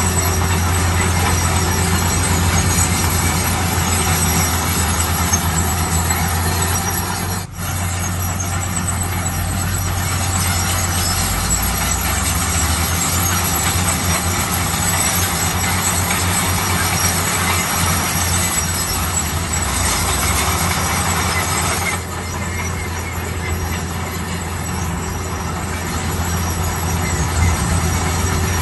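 Bulldozer's diesel engine running steadily with a heavy low hum, mixed with dense machine noise. It cuts out for an instant about seven and a half seconds in and turns a little quieter a few seconds before the end.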